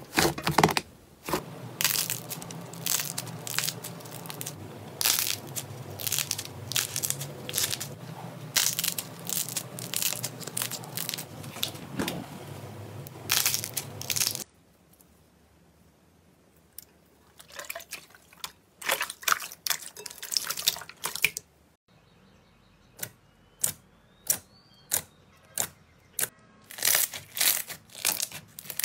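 Hands squeezing and kneading slime: sticky crackling with many sharp clicks and pops. Dense and continuous for about the first half, then quieter with separate pops.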